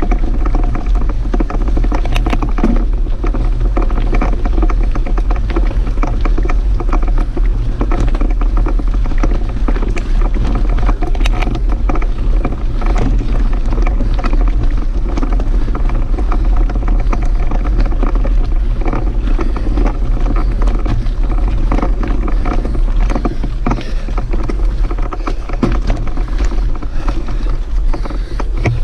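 Mountain bike rolling along a gravel track: steady tyre noise on loose stones with frequent small clicks and rattles, under a constant low wind rumble on the microphone.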